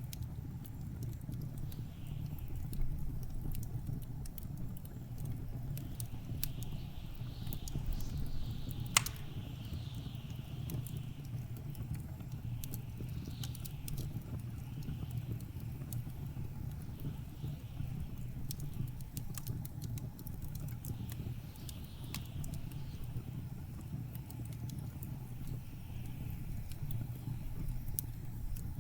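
Wood fire crackling with scattered small snaps and one sharp pop about nine seconds in, over the steady low rumble of blizzard wind with soft recurring gusts.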